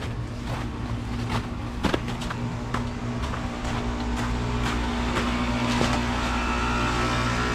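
Outdoor unit of a 2017 SmartComfort 2-ton heat pump running with a steady low mechanical hum during its defrost cycle, with scattered sharp clicks and ticks. A higher steady whine comes in near the end.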